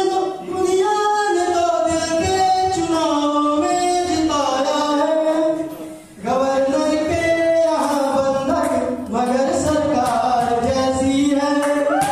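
A man singing a slow song solo into a microphone over a PA, with long held notes and a short break about six seconds in.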